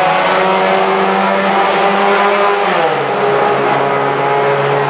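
Car engine running steadily under load; its pitch steps down sharply about three seconds in and then holds steady at the lower note.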